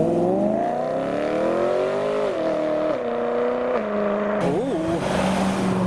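BMW E92 M3's V8 accelerating hard away, its pitch climbing and then stepping down at upshifts about two and four seconds in.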